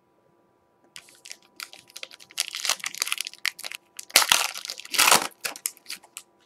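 Foil wrapper of a Prizm basketball card pack crinkling and crackling as it is torn open and the cards are pulled out. It starts about a second in and is loudest about four to five seconds in.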